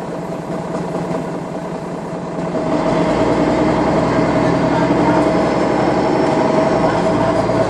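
MAN NL 313 low-floor city bus heard from inside the cabin while under way, its diesel engine and drivetrain running steadily. About two and a half seconds in the engine grows louder and deeper as the bus accelerates.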